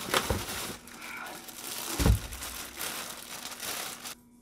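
Plastic wrapping crinkling and rustling as parts are pulled out of a cardboard box, with dull knocks just after the start and a louder one about two seconds in. The sound cuts off suddenly near the end.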